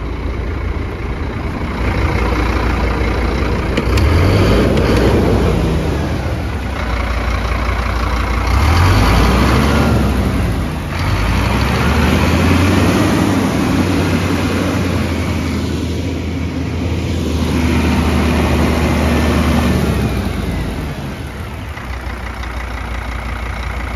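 Scania P230 truck's diesel engine revved up and down a few times, then held at raised revs for several seconds before dropping back to idle near the end.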